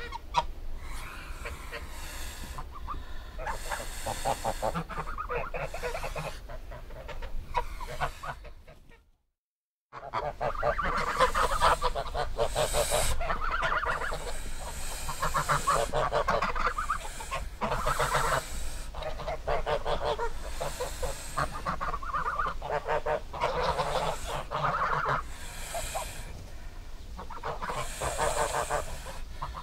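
Geese honking over and over, with calls overlapping in quick succession. The sound breaks off into silence for about a second around nine seconds in, then the honking resumes.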